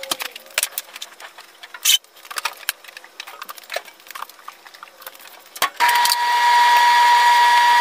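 Laundry being handled: a plastic laundry basket and clothes rustling, clicking and knocking as they are tipped out. About six seconds in, a clothes dryer starts and runs loudly with a steady whine over a rushing noise.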